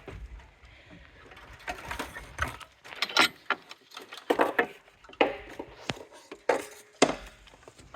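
Irregular knocks, clatter and rustling of objects being handled, with several sharper wooden-sounding knocks through the middle.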